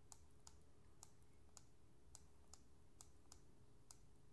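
Faint, quick clicks, about three a second, from a computer mouse's scroll wheel turning notch by notch as a document is scrolled.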